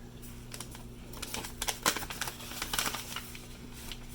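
Packaging crinkling and crackling with irregular sharp clicks as a mailed package is opened by hand, busiest and loudest in the middle.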